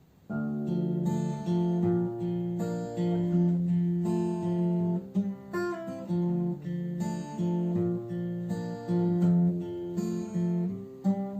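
Acoustic guitar strumming chords in a steady rhythm, coming in about a third of a second in: the song's instrumental intro before the vocal.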